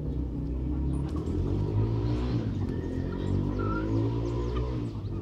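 Low, steady drone of a motor vehicle's engine running nearby, with a few short high chirps in the second half.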